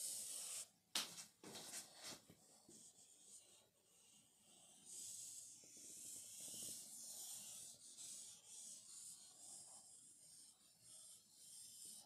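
Marker pen squeaking and rubbing faintly on a whiteboard in irregular strokes while drawing lines, with a sharp click about a second in.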